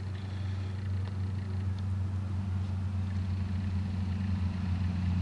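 A steady low engine hum that grows gradually louder, like a nearby motor vehicle.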